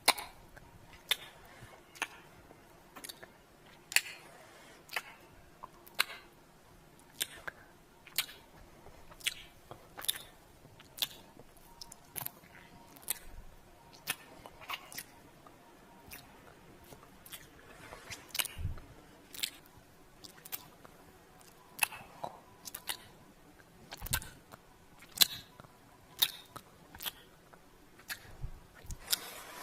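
Wet lip smacks and kissing sounds made close to the microphone. Sharp little smacks come about once a second, some in quick pairs, with quiet between them.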